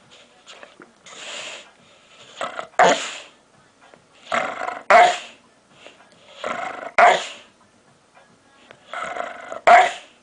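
A dog making the same odd vocal noise over and over, about every two seconds: each time a breathy, rasping sound runs into a short, louder bark-like yelp.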